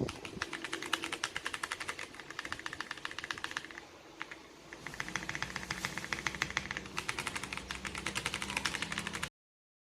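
Fast typing on a Royal Kludge RK R75 mechanical keyboard: a rapid, steady clatter of keystrokes with a short lull about four seconds in, cut off suddenly near the end.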